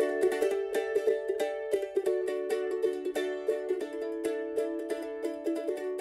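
Music: a plucked string instrument picking quick, evenly spaced notes over a ringing chord.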